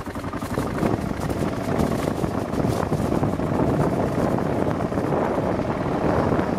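Kawasaki KLR single-cylinder dual-sport motorcycle running steadily at riding speed, heard from the pillion, with wind buffeting the microphone.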